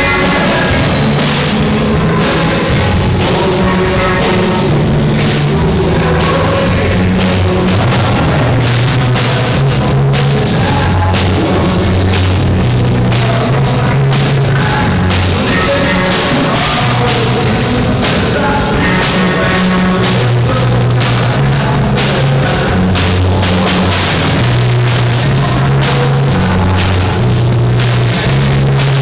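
A rock band playing loudly at rehearsal: a drum kit with steady cymbals over a bass line that steps between notes.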